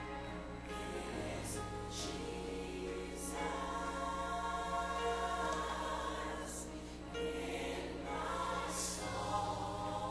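Choir singing a slow gospel song with instrumental backing, the voices holding long notes.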